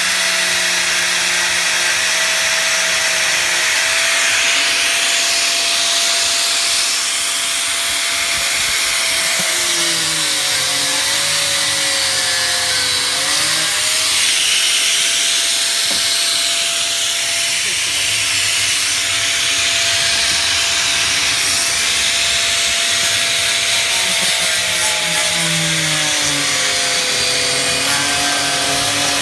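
Angle grinder running steadily as its disc cuts the car's plastic undertray. The motor's pitch drops and recovers twice, about a third of the way in and again near the end, as the disc bites harder into the plastic.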